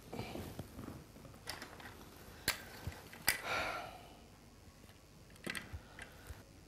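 Faint handling sounds of small objects and papers: a few scattered clicks and taps, with a short paper rustle a little past three seconds in.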